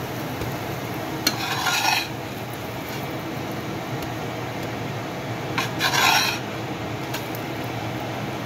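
A black plastic spatula scraping against a frying pan under a cooking pancake, in two short scrapes about four seconds apart, over a steady hiss.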